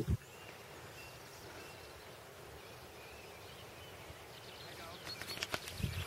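Open-field ambience: small birds chirping in the background, with low rumbles of wind on the microphone right at the start and again about five seconds in.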